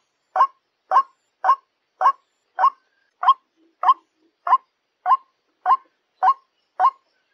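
White-breasted waterhen (ruak-ruak) calling, a lure call: a steady run of about a dozen short, harsh notes, evenly spaced a little under two a second.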